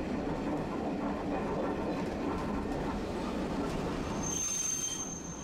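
Tosaden streetcar running, heard from inside the car as a steady rumble of wheels on rail. About four seconds in, a loud high-pitched steel wheel squeal sets in and holds to the end.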